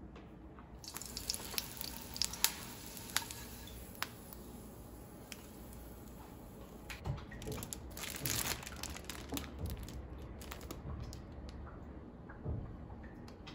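Quiet kitchen food-handling sounds: light clicks and taps as pieces of food are set onto a plate by hand and with chopsticks. A denser crinkling rustle comes about eight seconds in.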